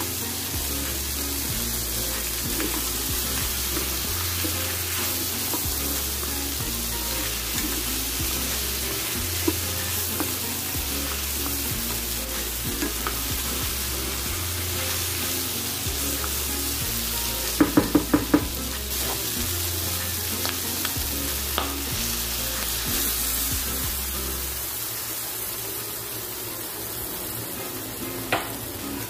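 Pieces of lamb with peppers and onions sizzling as they are stir-fried in a nonstick pan, turned with a wooden spoon; a quick run of about five spoon taps on the pan comes about two-thirds of the way through. The sizzle eases a little near the end.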